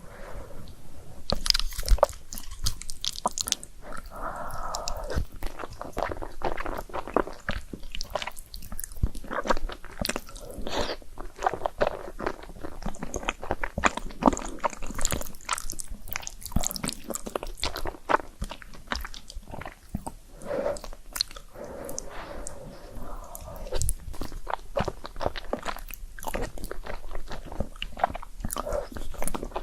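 Close-miked mukbang eating of carbonara noodles: continuous wet chewing with sticky smacking and clicking mouth sounds, now and then a longer drawn-in sound.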